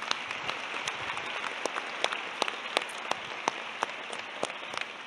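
A crowd applauding, with single sharp claps standing out close by over the general clapping.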